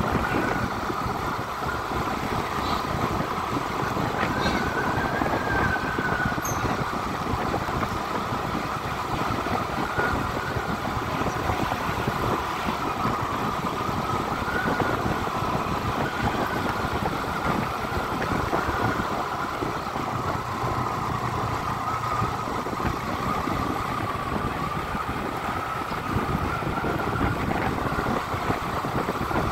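Steady road noise of a vehicle moving along a paved street, with a faint whine that wavers up and down in pitch.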